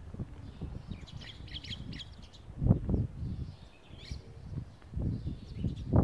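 Sparrows chirping in short bursts while the flock feeds, with low rumbling noise underneath that swells about two and a half seconds in and again near the end.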